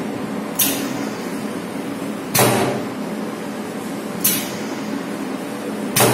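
Bench-top heat sealing machine working on a laminated plastic pouch: four short, sharp clacks about two seconds apart, each with a brief fading tail, over a steady background hum.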